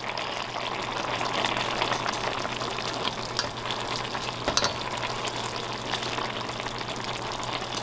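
Egg masala gravy simmering in a stainless steel kadai, a steady bubbling hiss, with a few light clicks of a perforated metal spoon against the pan as it cuts and turns the cooking eggs, over a steady low hum.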